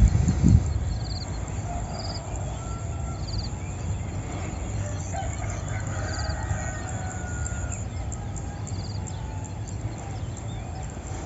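Morning birdsong over rice fields: a short, high trill repeated every second or two, with other birds calling softly behind it. A steady low rumble runs underneath, and a couple of thumps sound at the very start.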